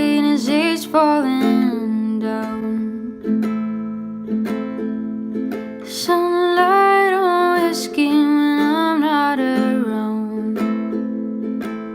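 Background music: a soft song with plucked strings and a voice carrying the melody.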